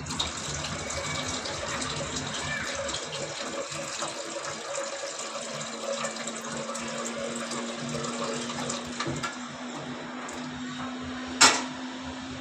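Samsung inverter washing machine filling with water again: water running steadily into the drum. A steady hum joins about halfway, and there is one sharp knock near the end.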